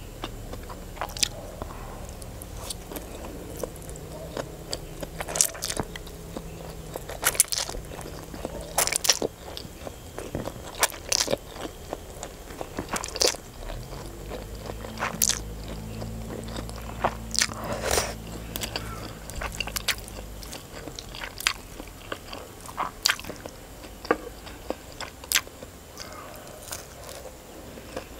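Close-miked eating sounds: chewing and slurping instant noodles, with wet mouth clicks and crunchy bites scattered irregularly.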